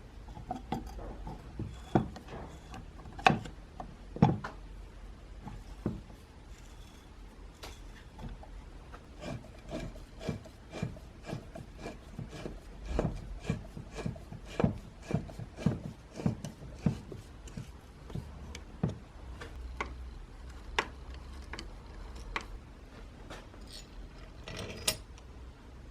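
Hand work on the parts of an antique hand-cranked bench grinder: irregular sharp clicks and light knocks, with some rubbing and scraping between them. A few louder knocks come in the first few seconds.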